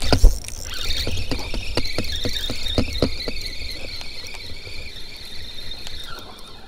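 Spinning reel being cranked against the weight of a hooked fish, its gears giving a steady high whine. A run of clicks, about three a second, comes over the first few seconds, and a loud thump sounds right at the start.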